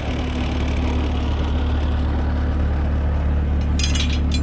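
Heavy diesel engine of the recovery equipment idling steadily, with a short run of sharp metallic clicks near the end.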